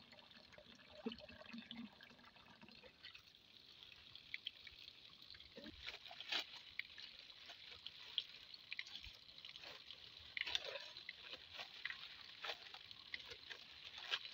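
Faint dripping and trickling of water as it is scooped by the cupful from a shallow spring hole into a pot, with scattered light crackles.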